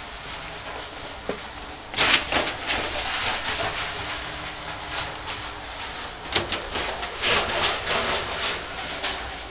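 Newspapers dropping down a tall trash chute: a rushing, rattling noise with loud surges about two seconds in and again around six to eight seconds in.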